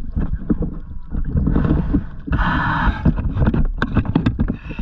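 Water sloshing and splashing around a camera held at the waterline, with a rumble and many small clicks. A harsh noise lasting most of a second comes about two and a half seconds in.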